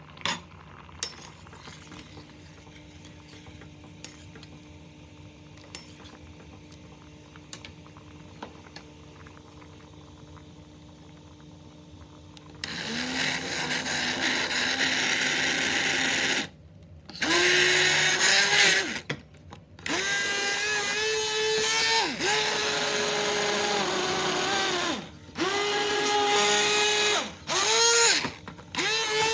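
Pot of split peas simmering with faint scattered pops, then from about twelve seconds in an immersion (stick) blender purées the soup in about five runs switched on and off. Its motor whine rises as it spins up and falls away each time it stops.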